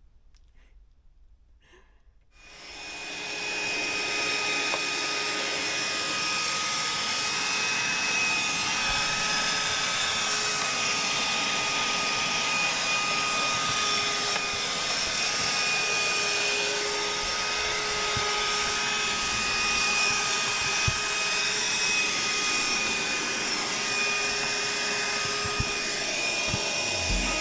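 Cordless handheld vacuum cleaner switching on about two seconds in, then running steadily with a high whine over the rush of air.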